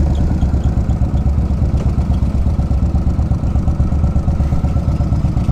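Yamaha Road Star Warrior 1670 cc V-twin motorcycle engine running at low speed in traffic, a steady fast pulsing, heard from the rider's helmet.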